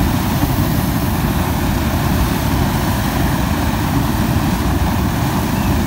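Flamethrower blasting a continuous jet of burning fuel: a loud, steady rush of flame.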